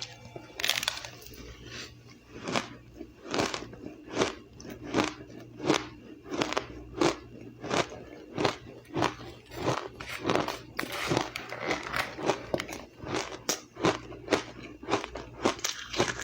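Crushed ice being bitten and chewed close to the microphone, with a sharp crunch about every two-thirds of a second.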